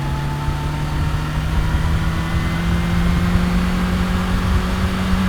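Kawasaki Ninja H2's supercharged inline-four engine pulling steadily in gear, its pitch rising slowly as the bike gains speed, over a low rumble.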